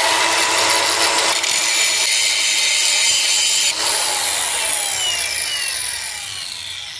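Cordless angle grinder running at full speed, then the trigger is released about four seconds in and the disc spins down with a falling whine that fades away.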